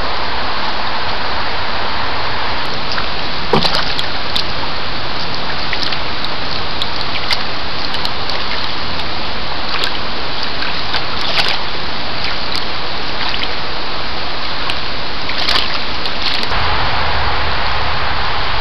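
Steady rain-like hiss with scattered sharp clicks and small splashes as white-tailed deer drink and step in shallow water. Near the end the hiss shifts and a low rumble comes in.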